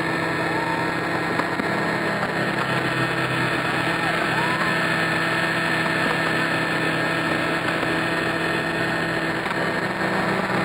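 Radio-controlled helicopter flying with fireworks burning on it: a steady drone and whine of its motor and rotor, made of several held tones over a hissing background, with no loud bangs.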